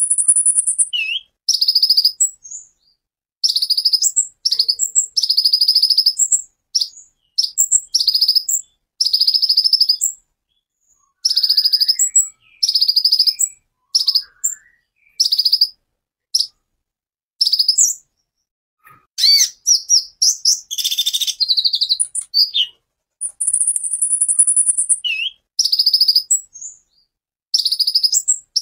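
Male sunbird (kolibri ninja) singing a run of short, very high, rapid bursts of notes ('tembakan'), each under about a second, with brief pauses between them. A more varied stretch of gliding notes comes a little past the middle.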